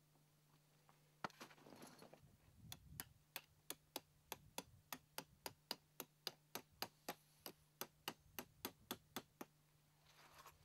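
Tent peg being hammered in at the corner of a ground tent: a run of about twenty sharp, evenly spaced taps at roughly three a second, after a brief rustle of handling.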